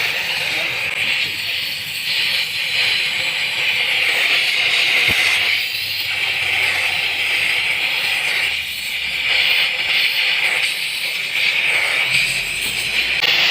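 Steady hiss of a welding arc on an aluminium cylinder head, easing off briefly a few times.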